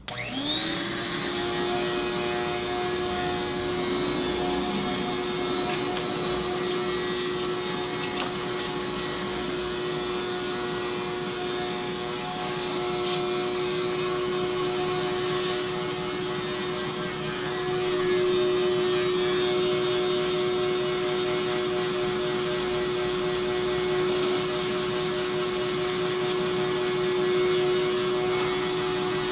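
Shop vacuum motor switching on and spinning up to speed within the first second, then running steadily with a high whine over rushing air while it sucks dust out of a desktop computer case.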